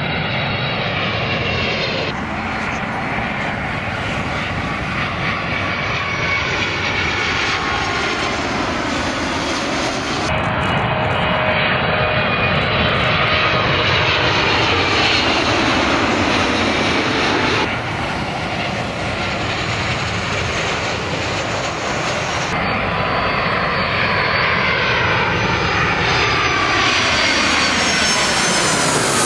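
Boeing twin-engine jet airliners, 777s among them, passing low overhead on landing approach one after another. The jet engines run with a whining tone that sweeps down in pitch as each aircraft goes over, and abrupt cuts join one aircraft to the next.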